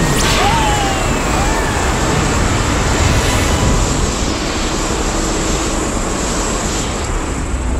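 Loud, dense, steady rumbling noise from a monster-film sound track, with a few faint short pitch glides about a second in.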